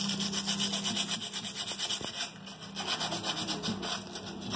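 Gloved hand scuffing the painted metal housing of a WEG three-phase motor with an abrasive, quick back-and-forth strokes with a short pause a little after two seconds in, keying the surface before it is painted.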